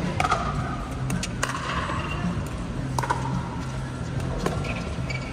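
Pickleball paddles striking a plastic ball in a rally: sharp knocks roughly every second and a half, ringing briefly in a large air-supported dome, with music playing in the background.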